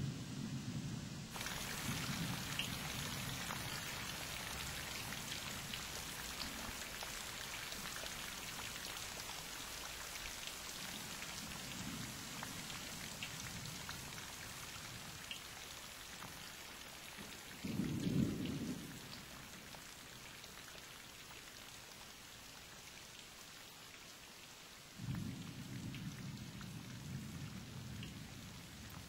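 Thunderstorm: a steady hiss of rain, which comes up suddenly just over a second in, with several low rolls of thunder. The loudest roll comes about 18 seconds in, and another starts abruptly about 25 seconds in.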